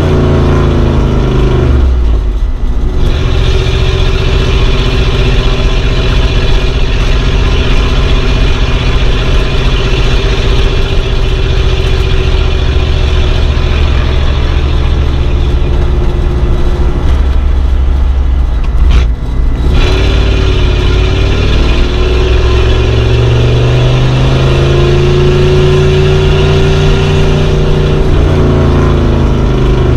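Old car engine running while driving, its revs changing. The pitch drops sharply about two seconds in and dips briefly around the middle. It then climbs steadily and falls again near the end.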